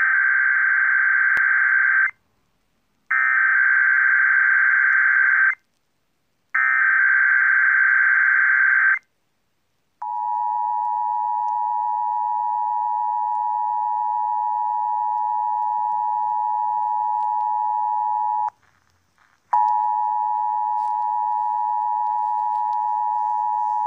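Emergency Alert System signalling for a Required Monthly Test: three SAME header data bursts, each a dense buzzing noise about two seconds long with a second's gap between, then the EAS attention signal, a steady two-tone beep of 853 and 960 Hz. The attention tone drops out for about a second partway through, then resumes.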